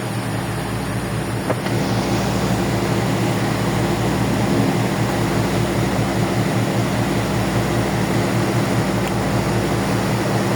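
Ferry's engines running steadily aboard, a constant low multi-tone hum under a wash of noise; the noise grows a little louder about one and a half seconds in.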